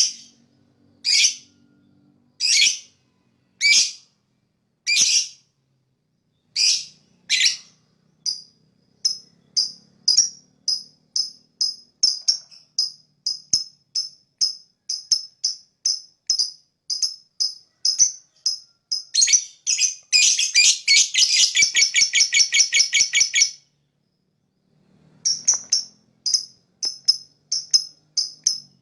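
Lovebird chirping: loud, sharp high-pitched chirps about once a second, then quicker, shorter chirps about two a second, breaking about two-thirds of the way through into a fast chattering trill that lasts about four seconds. After a brief pause the chirps start again.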